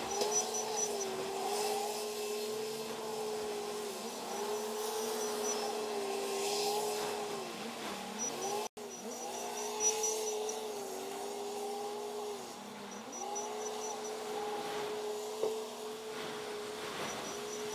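Heavy machinery running: an engine whine that climbs, holds and drops again about every four to five seconds over a steady lower hum, with short runs of faint high beeping.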